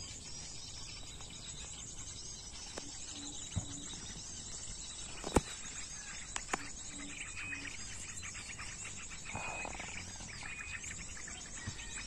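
Busy chirping and twittering of small birds, part of it a bird-lure recording of small-bird calls set playing to draw them in. A single sharp click stands out about halfway through.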